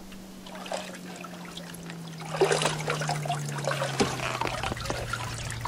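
Lake water splashing, trickling and dripping as a wet person hauls herself out onto a wooden dock, getting louder about two and a half seconds in. A low hum slowly falls in pitch underneath.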